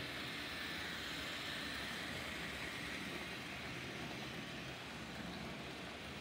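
Model electric trains running on a layout: a steady whir of the locomotive motors and the rolling of wheels on the track.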